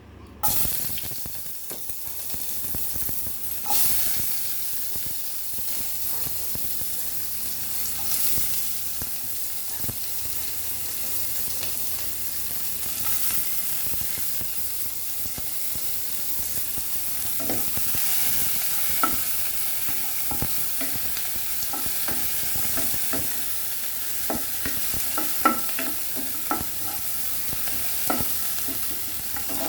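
Food sizzling in hot oil in a pan, starting suddenly about half a second in as it goes in, then a steady high hiss. From about halfway, a utensil stirring makes short scrapes and clicks against the pan.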